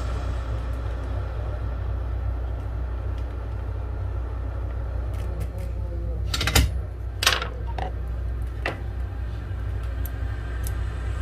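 Steady low hum, with two sharp clicks a little under a second apart past the middle.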